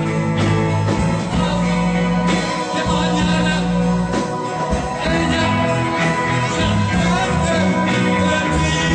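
Live pop-rock band playing a song: electric guitars and drums in a continuous, full mix.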